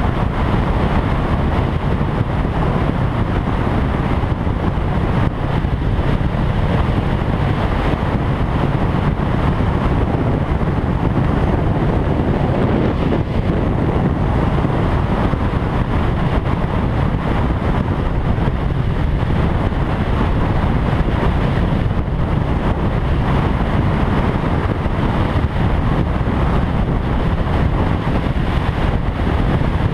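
Motorcycle cruising at a steady highway speed: wind rushing over the microphone, with the engine's steady drone underneath.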